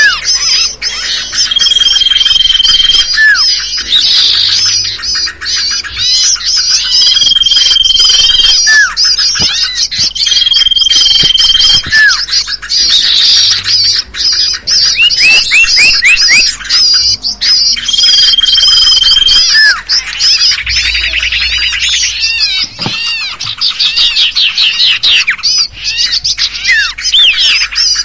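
Busy bird-lure recording for common iora (cipoh/sirtu): many small birds call at once, with dense high chattering and trills. A long, steady whistle recurs every few seconds, and short falling notes fall between.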